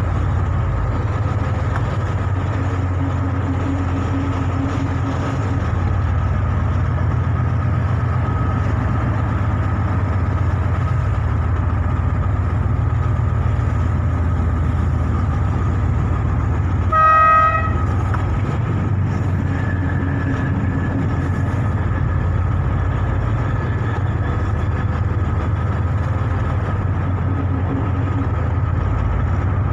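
Harbour launch's engine running with a steady low drone. A little past halfway a single short horn toot sounds.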